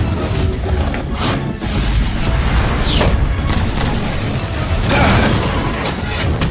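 Animated fight soundtrack: dramatic music mixed with heavy booms and impacts, and a couple of falling whooshes.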